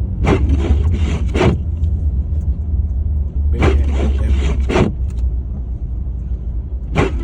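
Steady low rumble of a car on the move, with a broad swishing noise about a second long that comes three times, roughly every three and a half seconds.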